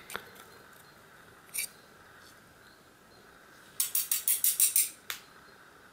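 Small metal clicks and scrapes from a lock cylinder being handled as a shim is drawn out of it. About four seconds in there is a quick run of high clicks lasting about a second, with single light ticks before and after.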